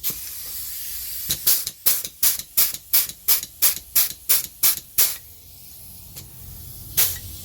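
Pneumatic air joggler (flange and hole-punch tool) releasing a hiss of compressed air, then cycling its jaws in quick, even strokes, about three a second for some four seconds. It stops and starts stroking again near the end. The tool is being cycled after repair to work it back into action.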